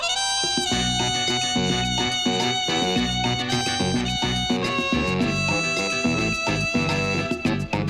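Instrumental background music: a sustained melody line over a steady, rhythmic accompaniment.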